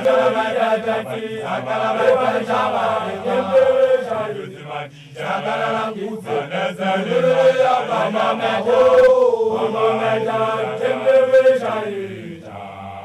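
A group of young Basotho men (makoloane, initiation graduates) chanting a song together without instruments, with long held notes. The singing fades away near the end.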